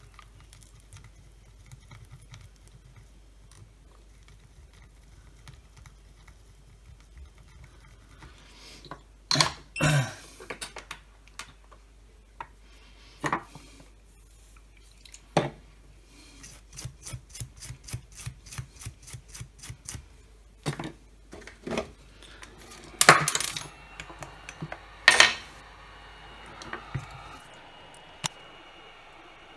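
Clicks and knocks of tools and small parts being handled and set down on a workbench during soldering work on a drill's circuit board, with a quick run of light ticks in the middle. Near the end a handheld hot-air gun starts blowing with a steady hiss.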